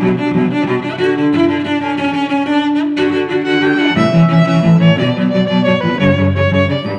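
Background music with long held notes that change pitch every second or so.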